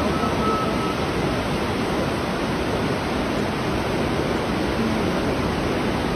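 Torrent of muddy floodwater rushing past in a steady, loud roar, a river in full spate.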